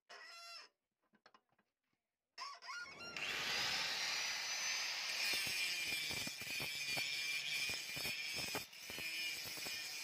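Handheld electric angle grinder with an abrasive disc starts up about two and a half seconds in and grinds the steel of a chainsaw-bar knife blade: a steady high whine over a grinding hiss, dipping briefly near the end.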